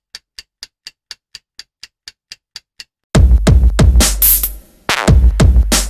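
Electronic background music. A faint ticking beat about four times a second gives way, about three seconds in, to loud heavy drum-machine hits over deep bass, which drop out briefly and come back near the end.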